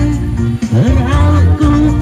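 A man singing into a handheld microphone over amplified backing music, karaoke-style, with the melody held and sliding between notes over a steady bass line.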